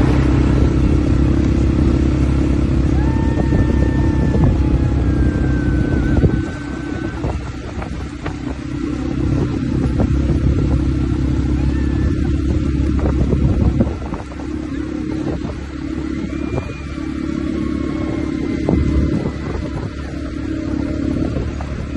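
Quad bike engines running as the ATVs drive along a dirt track. The engine is loud and steady for about the first six seconds, then drops to a lower level that dips again about halfway through.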